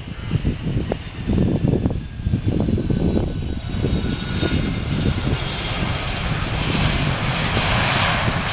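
Jet engines of a Boeing 767-200 freighter arriving to land: a high whine that slowly falls in pitch over a rough low rumble, with the roar swelling over the last few seconds.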